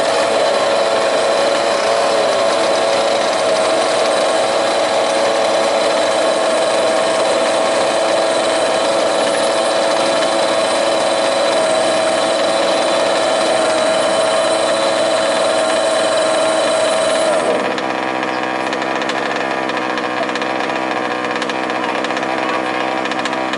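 Small two-stroke petrol engines of 1/5-scale RC off-road cars running steadily. The loudest, with a steady high-pitched buzz, cuts off about seventeen seconds in, leaving other engines running more quietly.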